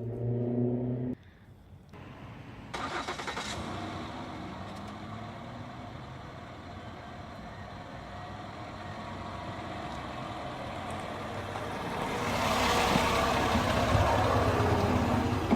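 Car engine starting a few seconds in, then running steadily and growing louder near the end.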